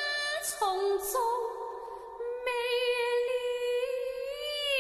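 Cantonese opera singing: a solo voice sings a short bending phrase, then, about halfway in, takes up a long held note with a wavering vibrato that swells near the end.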